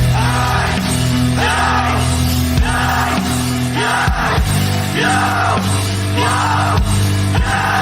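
Loud rock music with a steady bass line and a vocal in short repeated phrases, about one a second.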